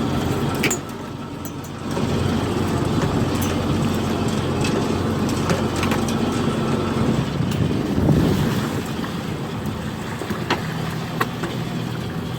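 Fishing boat's engine running steadily, with scattered sharp clicks and knocks from work on deck. The sound briefly drops away about a second in.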